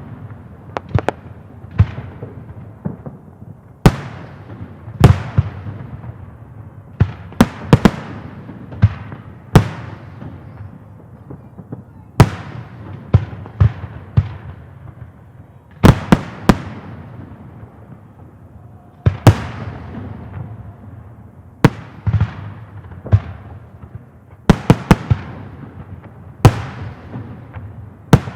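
Fireworks display: aerial shells bursting with loud, sharp bangs, irregular and often several in quick succession, each followed by a fading rumbling echo.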